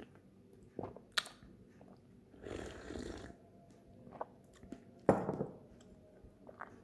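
A glass of latte set down on a wooden tabletop with one sharp knock about five seconds in, the loudest sound here. Around it are scattered small clicks and, about two and a half seconds in, a short spell of crunching like almonds being chewed.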